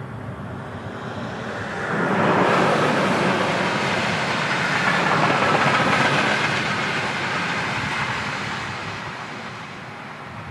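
A train passing by. Its rumble and rail noise swell suddenly about two seconds in, stay loud for several seconds, then fade away.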